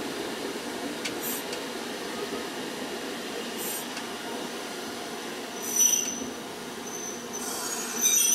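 Fukui Railway 770-series tram running on street track, heard from inside the front of the car, with a steady running hum. A high, thin squeal from the wheels or brakes comes briefly about six seconds in and again, louder, near the end as the tram slows.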